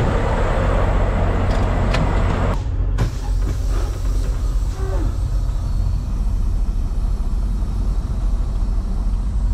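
A semi truck's diesel engine idling with a steady low hum, with outdoor wind noise over it at first. About two and a half seconds in, the noise drops suddenly, and the engine sounds quieter and muffled, as heard from inside the cab.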